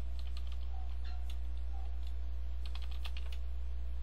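Typing on a computer keyboard in short runs of keystrokes with pauses between them, over a steady low electrical hum.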